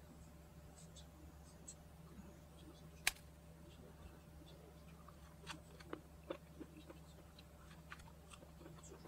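Boiled corn on the cob being handled and eaten at a table: faint small clicks and taps over a low steady hum, with one sharp click about three seconds in and a few more taps a little later.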